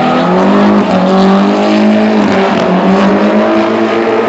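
Two drift cars sliding in tandem, their engines held at high revs with the pitch dipping and climbing as the throttle is worked, over a steady hiss of tyre noise.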